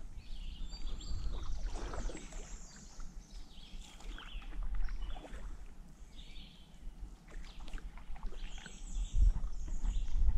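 Paddling a stand-up paddleboard: water splashing and sloshing around the board, with a low wind rumble on the microphone. Small birds chirp now and then, and there is a louder knock near the end.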